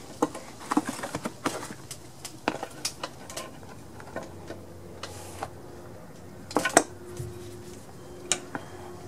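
Irregular light metallic clicks and knocks of a wrench and hands working at the compressor pump's oil drain plug over a plastic drain pan, busiest in the first few seconds, with a sharper clatter about two-thirds of the way in.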